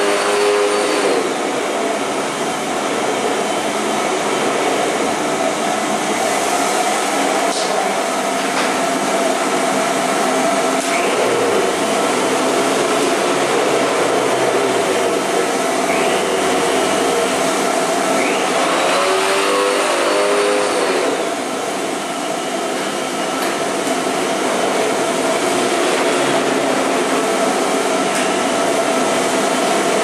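Vacuum cleaner running steadily: a continuous rushing hiss with a steady motor hum, and a couple of slow sweeps up and back down in pitch, near the start and about two-thirds of the way in.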